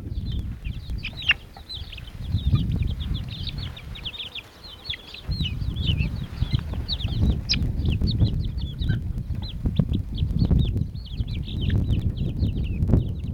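Young chickens giving many short, high peeping chirps and clucks as they crowd and peck at bread, over a low rumbling noise.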